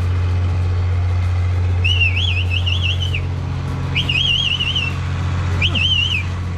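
Boat engine running with a steady low drone. Over it come three warbling, whistle-like tones, each wavering quickly up and down in pitch: a longer one about two seconds in, then two shorter ones.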